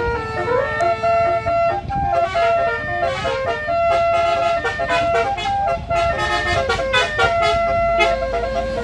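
A bus's basuri telolet horn, a multi-tone musical air horn, playing a fast melody of stepped notes, with a quick run of repeated short notes in the second half. The bus's engine rumbles underneath.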